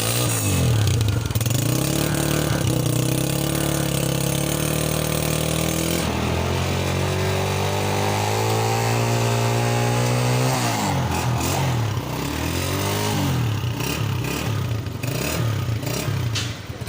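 Honda CG125's single-cylinder four-stroke engine being revved. It runs steadily at first, climbs slowly in revs about halfway through, then drops back and is blipped up and down several times in quick succession.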